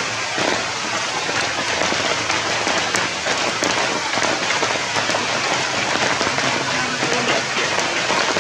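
Steady rain falling, a dense even hiss of countless small drop hits.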